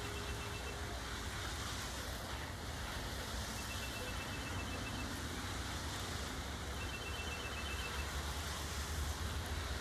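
Steady outdoor wind rumble on the microphone, with a faint high, rapid trill of a small bird or insect repeating three times.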